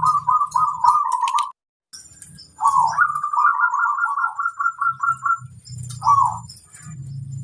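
Zebra dove (perkutut) calling: a fast run of repeated cooing notes, a brief break, then a longer run of quick notes and one last coo a little before the end. Faint high chirps sound behind it.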